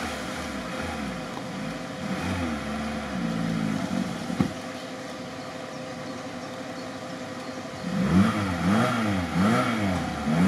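Lada Niva's engine, stalled in deep water and now running again, revving repeatedly in rising and falling bursts that grow louder over the last couple of seconds. A single sharp knock comes about four seconds in.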